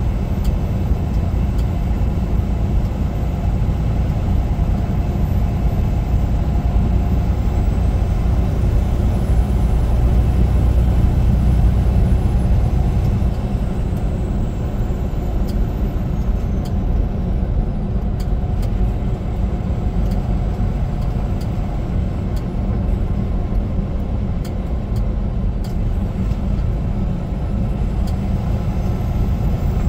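Semi-truck's diesel engine and road noise: a steady low rumble that swells a little about a third of the way in and then settles.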